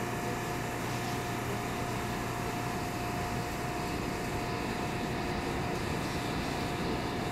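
R179 subway train standing at an elevated station platform, its onboard equipment giving a steady hum with a thin, steady high whine.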